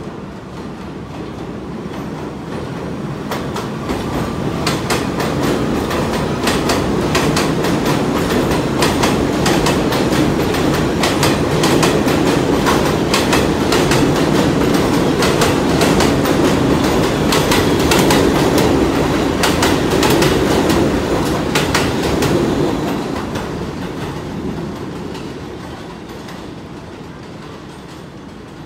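R46 subway train passing on the express track of an elevated steel structure, its steel wheels clattering over the rail joints. It builds as the train nears, stays loud for about fifteen seconds as the cars go by, then fades as it pulls away.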